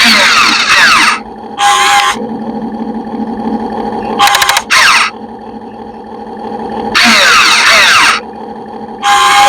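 RC excavator running with a steady hum, broken by six loud hissing, squealing bursts of half a second to a second as it works.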